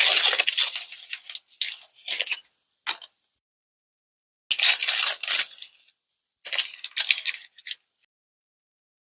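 Plastic toy packaging being handled and opened in several short bursts of crinkling and rattling, with small hard pieces clinking, broken by silent gaps.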